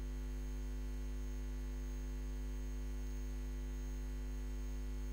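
Steady electrical mains hum on the recording: a constant low drone with its overtones and a faint high whine above it, unchanging throughout.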